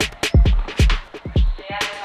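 Electronic dance music with a steady kick drum about twice a second, sharp hi-hat strokes and synth chords.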